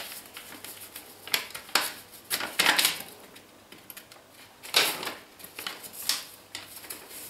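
Paper packets of pudding powder being torn open and emptied into a bowl: a handful of short, papery rustles and tears.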